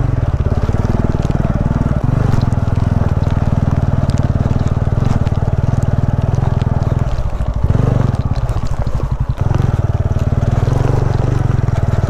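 TVS Ronin's 225 cc single-cylinder engine running at low speed under load as the motorcycle rides a rocky, slippery dirt track, its firing pulses steady and close-miked. About seven seconds in, the engine note dips for a couple of seconds, then picks up again.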